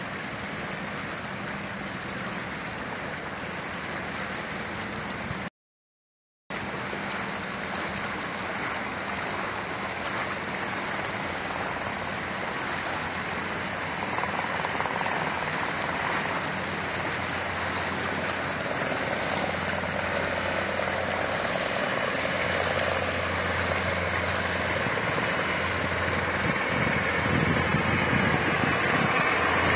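Military helicopter noise: a steady rushing drone with a low hum that grows gradually louder through the second half, as if the aircraft is drawing nearer. The recording drops out completely for about a second near the start.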